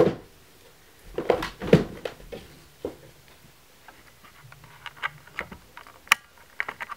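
A few dull thuds of someone moving across the floor near the camera. These are followed by small clicks and rustles of the recording phone being handled, with one sharp click about six seconds in.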